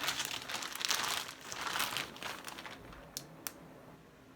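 Shipping packaging crinkling and tearing as it is worked open with a pencil instead of scissors, busiest in the first two and a half seconds, then quieter, with a couple of sharp clicks near the end.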